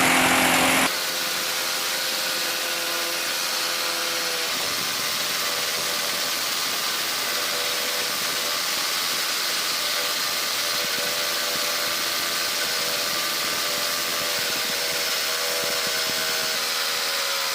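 Electric drill running steadily as it bores a hole into a wall for a pipe fitting, with a louder, harsher burst in the first second.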